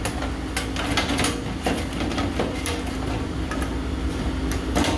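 A black louvered plastic grille being fitted back onto the top panel of a stainless reach-in freezer: a string of irregular clicks and knocks over a steady low hum.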